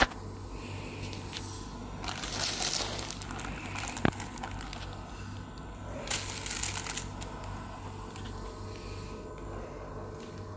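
Plastic packaging crinkling in two bursts, about two seconds in and again about six seconds in, with a single sharp click between them, over the steady low hum of an oxygen concentrator's compressor.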